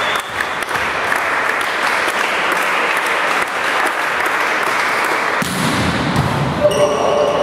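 Applause in an indoor volleyball hall, dying away about five and a half seconds in.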